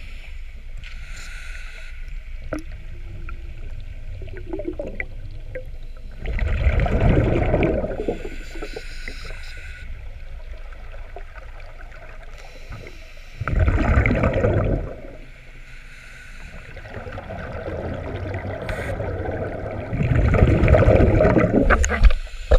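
Scuba diver's breathing through a regulator, heard underwater: three bubbling exhalations about seven seconds apart, each lasting a couple of seconds, with a thinner hiss of inhalation between them.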